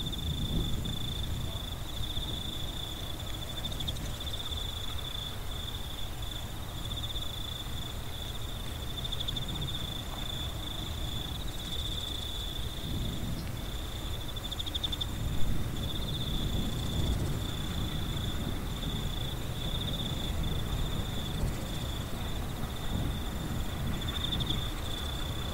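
Crickets chirping: a steady, high, slightly pulsing trill that carries on throughout, over a low rumble.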